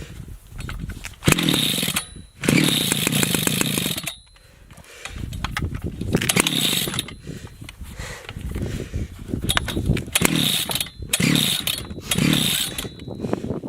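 Chainsaw being pull-started over and over: about six hard pulls on the recoil starter rope, each a short whirring burst as the engine turns over without catching. The owner suspects it is flooded.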